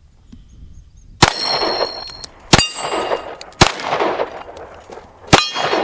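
Four pistol shots at an uneven pace, the first a little over a second in, each followed by the clang and lingering ring of a struck AR500 steel plate target.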